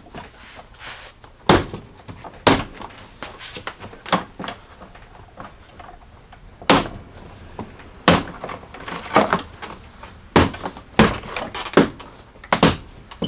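Plastic lower front bumper fascia of a 2018 Jeep Grand Cherokee being pulled off by hand, its small retaining clips along the seam snapping loose: about ten sharp pops at irregular intervals.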